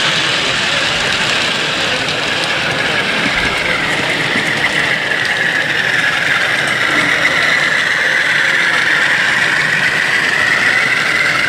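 DCC sound from a model Class 47 diesel locomotive: the engine running steadily, with a high whine that dips slightly in pitch and rises again near the end.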